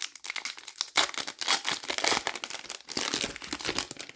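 Foil wrapper of an Upper Deck hockey card pack crinkling and tearing as it is handled and opened by hand, a dense crackle that stops abruptly near the end.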